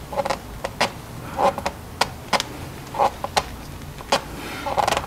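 A new oil filter being hand-tightened with a gloved hand and a microfiber towel: about a dozen scattered sharp clicks and a few short rubbing, scraping sounds of glove and towel against the filter.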